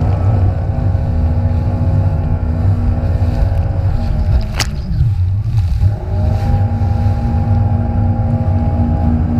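Jet ski engine running at a steady high pitch over heavy wind and water rumble. About halfway there is one sharp slap and the engine pitch drops as the throttle eases, then it climbs back and holds steady again.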